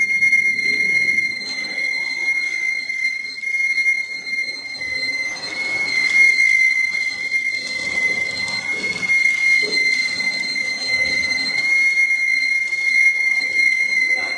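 Arc welding on a steel roller's end plate: the irregular crackle and sizzle of the welding arc, under a steady high-pitched whine.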